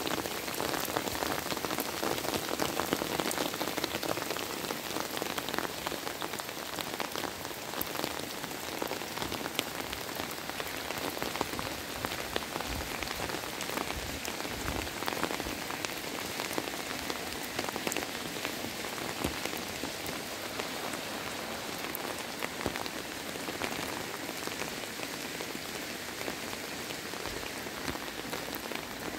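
Steady rain falling on a wet asphalt road and roadside grass, a continuous hiss of rain with many small, sharp drop taps.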